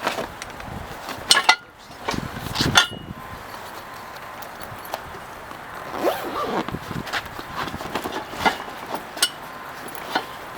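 A hammock being stuffed into its carry bag by hand: fabric rustling and scraping, with a few sharp clicks and knocks scattered through.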